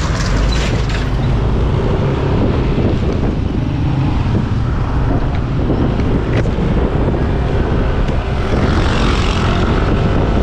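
Riding noise from a moving motor scooter: wind rushing over the microphone over a steady low drone of engine and tyres on the road.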